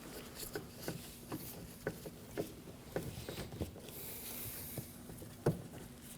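Phillips screws being turned by hand into a car's plastic inner door panel: faint, irregular clicks and creaks, with one louder click about five and a half seconds in and a brief soft hiss near the middle.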